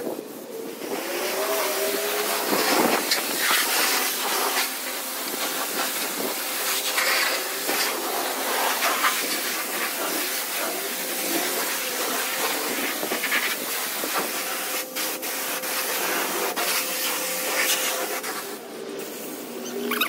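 Self-service car wash pressure-washer wand spraying high-pressure water onto a car's body panels and wheel: a steady hiss of spray that starts about a second in and fades near the end.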